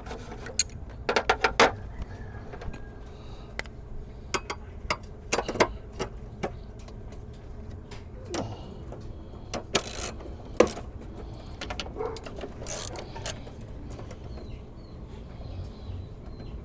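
Scattered metallic clicks and clinks of a ratchet and 10 mm socket as the bolts of an engine-bay brace are threaded in and tightened, some clicks coming in quick runs, over a faint steady low hum.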